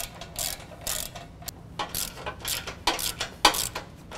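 Hand socket ratchet clicking in quick back-and-forth strokes, about three a second, as the bumper's locking flange nuts are tightened down.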